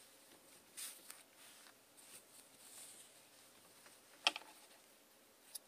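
Soft rustling of yarn and a crocheted hat being handled, with a sharp double click about four seconds in and a smaller click near the end.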